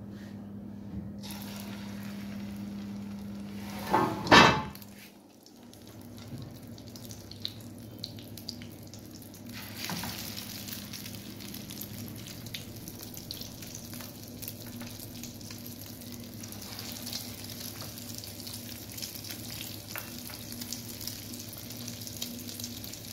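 Chicken shami kababs coated in beaten egg shallow-frying in hot oil in a nonstick pan, sizzling steadily. The sizzle grows louder about ten seconds in. A brief loud burst about four seconds in is the loudest sound.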